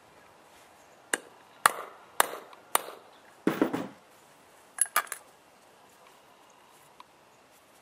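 Hammer blows setting a metal snap fastener: four sharp strikes about half a second apart, then a short rougher rattle and three light clicks.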